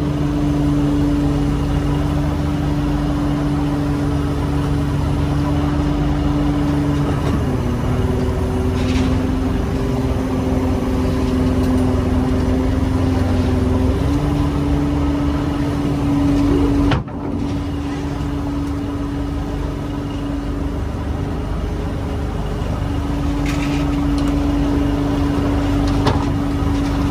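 Machinery on a whitebait fishing boat running with a steady droning hum. Its pitch drops about seven seconds in, rises again about halfway through, and there is a sudden break about two-thirds of the way in.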